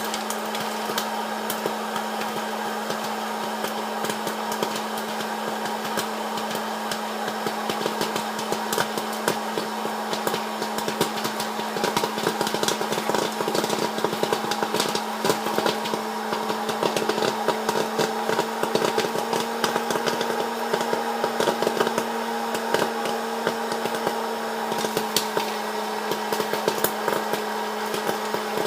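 Electric hot-air popcorn popper running, its fan motor humming steadily under a rush of hot air, while popcorn kernels pop in a rapid crackle. The pops are thickest in the middle and thin out near the end.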